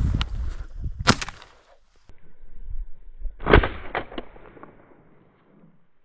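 Two shotgun shots at a flushed upland game bird, about two and a half seconds apart. The second is louder, and its echo rolls away over the next second or so.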